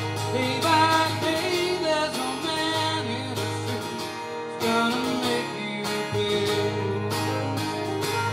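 Acoustic and electric guitar playing together: a strummed rhythm under a lead line whose notes bend and waver.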